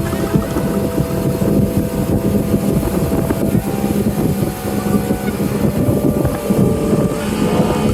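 A motorboat engine running steadily, with wind buffeting the microphone.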